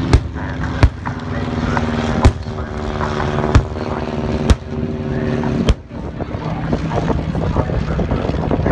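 Six sharp pyrotechnic airburst bangs, simulated anti-aircraft fire, over the steady drone of piston-engined propeller warplanes. The bangs stop about six seconds in.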